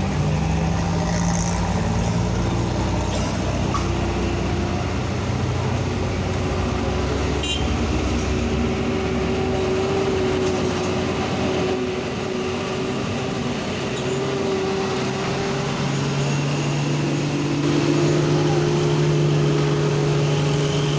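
Road vehicle engines running steadily. A deeper engine note fades out a few seconds in and comes back louder near the end.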